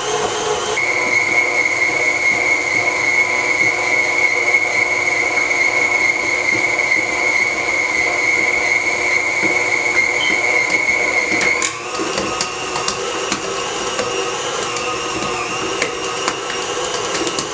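Electric tilt-head stand mixer running with its dough hook, kneading a soft yeast dough: a steady motor whine whose pitch steps up about two-thirds of the way through as the speed changes.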